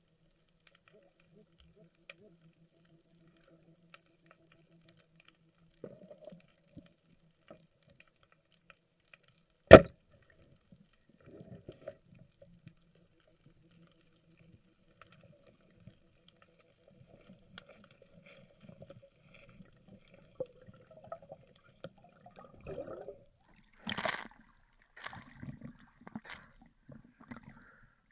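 Underwater recording: one sharp, loud crack about ten seconds in from a speargun fired at a cuttlefish on the sand. Near the end come bursts of water splashing and bubbling as the speared cuttlefish is brought up.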